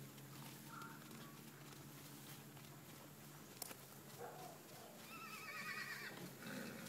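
A horse whinnying once, about five seconds in: a wavering call lasting about a second, over a faint steady low hum.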